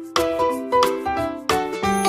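Background music: a light melody of struck, ringing keyboard-like notes, each starting sharply and then fading.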